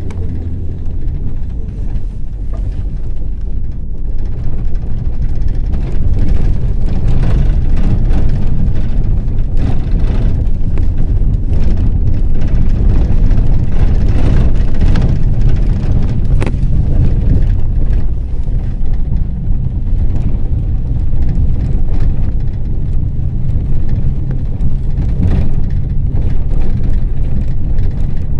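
Ford Transit minibus driving, heard from inside the cabin: a steady low engine and road rumble that grows louder about six seconds in, with a few short knocks and rattles.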